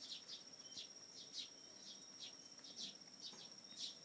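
Faint insect chorus: a steady high trill, with short high chirps falling in pitch, two to three a second.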